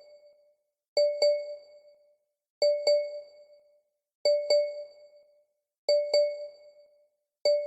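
A bell-like chime struck twice in quick succession on the same note, the pair repeating about every second and a half, each ring fading over about a second.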